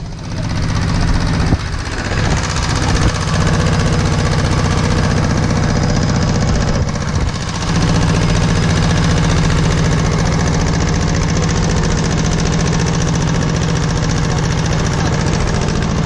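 Tractor engine running steadily, heard up close from the trailer it pulls.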